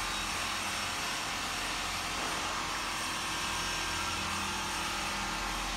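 Steady background noise of a factory floor: an even machine hum and hiss with no breaks.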